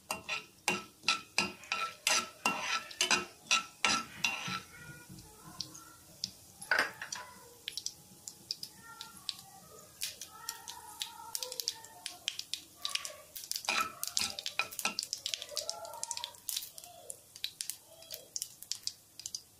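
A metal spoon stirring and knocking against a metal pan, the pan ringing with each of a rapid run of knocks for the first four seconds or so. After that, scattered sharp pops and crackles of mustard seeds and dals frying in hot oil for a tadka.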